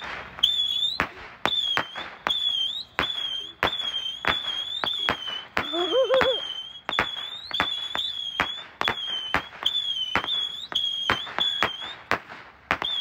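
Aerial fireworks going off: a shrill, high whistle broken by sharp pops, two or three a second.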